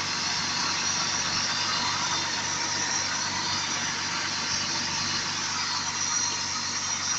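BMW E34 engine idling steadily while warming up in freezing weather, after sitting unused for three months.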